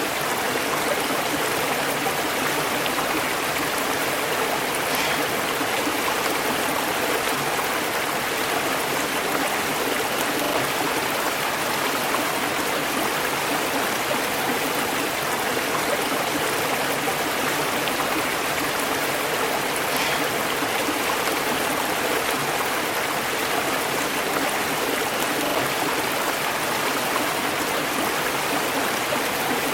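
River water rushing and babbling over rocks, a steady even flow.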